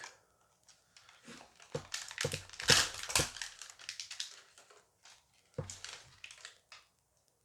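A foil booster pack being torn open and crinkled by hand, with a few light knocks as the pack and its contents are handled.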